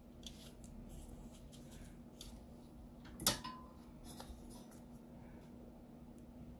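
Small handling sounds of metal tweezers working on a Bluetooth intercom circuit board: scattered faint ticks and scrapes, with one sharp click about three seconds in. A steady low hum runs underneath.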